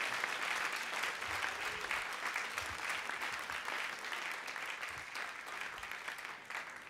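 Audience applause at the end of a song recording, gradually fading out.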